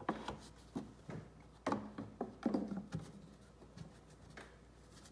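Plastic air box cover of a Polaris Sportsman 450 ATV being set back onto the air filter housing by hand: a handful of short plastic knocks and scrapes in the first three seconds, the loudest about two and a half seconds in.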